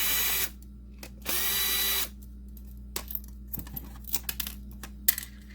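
Small electric screwdriver or drill running in two short bursts with a steady whine, about half a second and then most of a second long, unscrewing a game cartridge's shell. Light plastic clicks and knocks follow as the cartridge is handled and opened.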